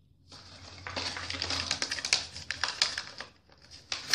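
Toy packaging being handled out of view: a dense run of crinkling and sharp clicks starting about a third of a second in.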